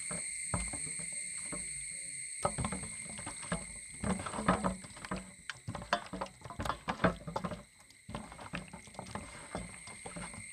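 Raw chicken wings being squeezed and turned by hand in a stainless steel bowl with their marinade: irregular wet squelches and slaps with light clicks against the metal.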